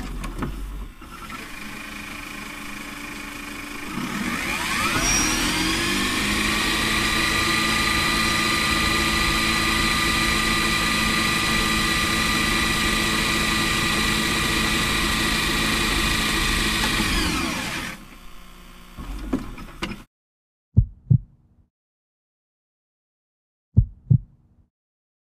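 A motor or engine spins up with a rising whine over about a second, runs at a steady pitch for about twelve seconds, then winds down. Near the end come sharp film-leader countdown ticks, one short click-and-beep pair about every three seconds.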